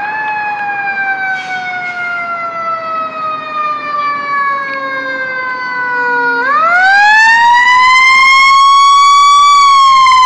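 Fire engine siren wailing as the engine approaches. Its pitch slides slowly down, then about six and a half seconds in it climbs again, much louder, and starts to fall near the end.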